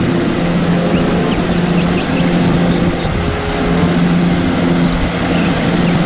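Wheel loader fitted with a snow-plow blade, its diesel engine running steadily under load over a constant hiss as it pushes through snow.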